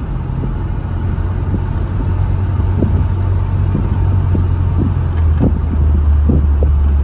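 Rover Mini's 1.3-litre four-cylinder engine running as the car is driven, heard with wind rushing in through the open windows. The engine's note shifts about five seconds in.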